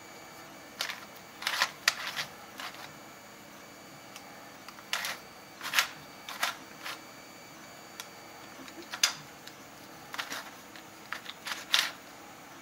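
Hard 3D-printed plastic pieces of a puzzle heart model clicking and knocking against each other as they are taken off and fitted together by hand. The sharp clicks come in irregular small groups every second or two.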